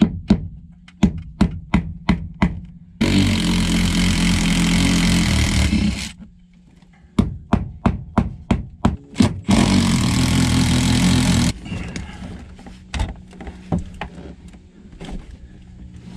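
Cordless power tool, impact wrench or electric ratchet type, run in two bursts of about three and two seconds while unbolting a car's rear seat. Between the bursts come rows of sharp clicks, about three a second.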